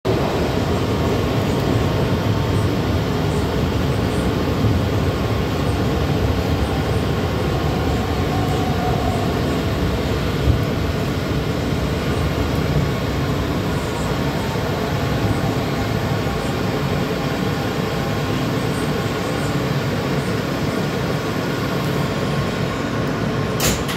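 Interior of an R160 subway car in motion through a tunnel: a steady rumble of the wheels on the rails and the car's running gear. A sharp click comes near the end.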